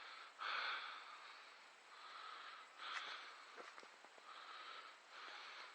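A man breathing hard, about five loud breaths through the nose and mouth, with a few faint clicks in the middle.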